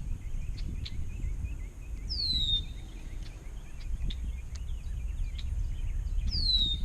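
Outdoor ambience over a steady low rumble. A bird gives a clear downward-sliding whistle twice, about four seconds apart, among softer small chirps.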